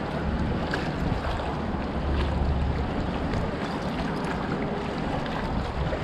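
Steady rushing of floodwater gushing from a storm-drain pipe, mixed with wind buffeting the microphone in a low rumble that swells about two seconds in.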